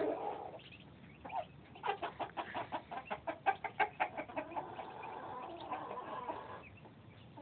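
Muscovy ducklings peeping: a quick run of short peeps, then a steadier stretch of calling that fades near the end.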